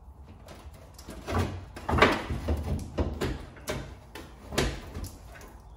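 Irregular metal knocks and scraping as the fuel tank of a Mk1 VW Golf GTI is pushed and pulled against its brackets under the car while it is worked free. The loudest knock comes about two seconds in, with another strong one near the end.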